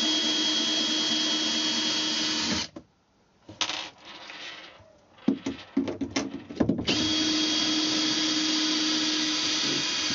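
Makita cordless drill-driver running at a steady speed in two runs of about three seconds each, backing screws out of a wooden cabin panel. A few clicks and knocks from handling come between the runs.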